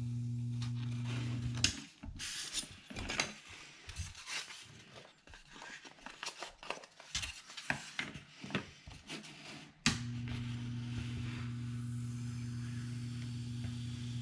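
Proxxon hot wire foam cutter humming steadily, switched off with a sharp click about two seconds in. Then come scattered rustles, scrapes and light knocks of foam and the wooden shape jig being handled. About ten seconds in another sharp click switches the cutter back on, and the hum resumes.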